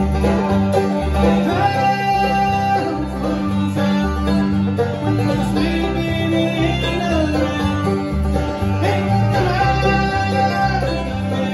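Live bluegrass band playing: banjo picking over strummed acoustic guitars, with low notes changing in steps and a higher melody line that comes and goes every few seconds.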